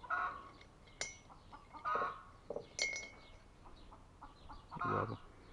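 A new sealed bottle being handled, giving a few sharp clinks and clicks, the last with a brief ring. Short low grunts come in between.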